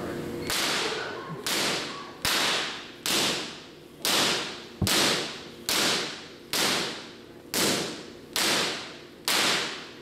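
High-voltage spark discharges, artificial lightning bolts striking from the machine to the ground. They give a sharp crack just under once a second, about eleven in all, starting half a second in, and each crack rings and dies away.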